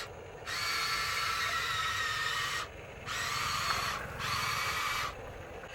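Small electric motors and gearing of a radio-controlled excavator whining in three bursts, each starting and stopping suddenly as the controls are worked.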